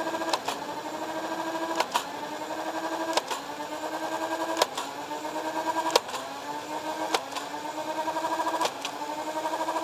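Dart Zone Spectrum flywheel blaster held revved, its motor whining steadily while darts are fired about every second and a half. There are seven shots, each a sharp click followed by a brief drop in the motor's pitch as the flywheels slow on the dart and spin back up.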